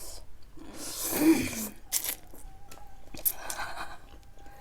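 Close-up mukbang eating sounds: a loud breathy intake about a second in, then chewing on spicy keema noodles with small wet clicks.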